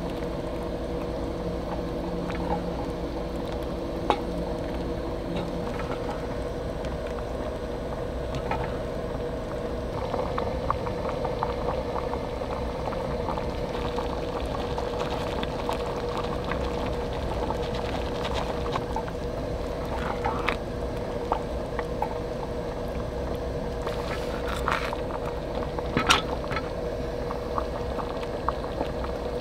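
Creamy sauce simmering and bubbling in a cast iron Dutch oven while a wooden spoon stirs it. Now and then the spoon knocks against the pot, most sharply near the end.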